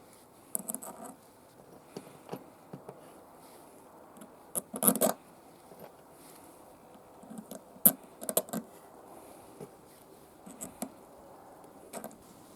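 Scattered handling sounds of small parts and tools being worked on: irregular clicks, light knocks and scrapes, the loudest cluster about halfway through and a sharp click soon after.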